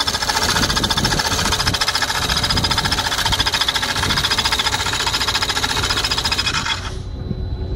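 Engine running with a loud, fast, even rattling knock, the noise being recorded as a fault. It is shut off suddenly about seven seconds in.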